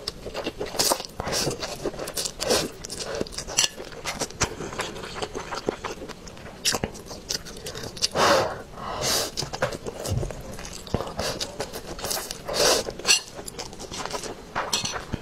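Close-miked eating of spicy instant noodles: slurps that suck the noodles in, and wet chewing and smacking. Several longer slurps stand out, two just past the middle and one near the end.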